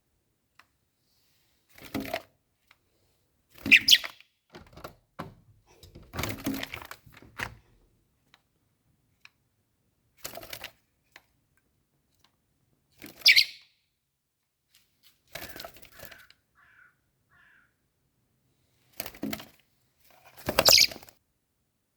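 Young blackbird giving short calls in scattered bursts, about eight across the stretch, mixed with thumps and rustles.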